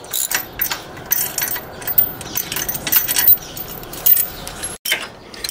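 Hand socket ratchet and vise-grip pliers clicking and clinking on a steel sway-bar end-link bolt as it is slowly backed out. The clicks are irregular.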